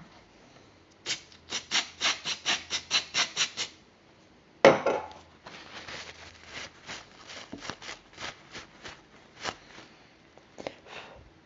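Quick back-and-forth rubbing strokes of a wipe-down of a cleaned circuit board, about four a second. There is a pause, then a louder scrape, then a longer run of fainter strokes.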